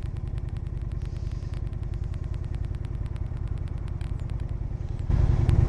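Honda Shadow 750 Aero's V-twin engine running steadily, getting clearly louder about five seconds in.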